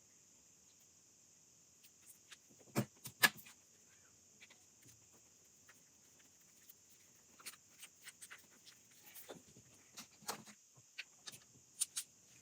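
Scattered light clicks and taps from handling the phone, its charging cable and small repair parts, with two sharper knocks about three seconds in and a run of small taps near the end, over a faint steady hiss.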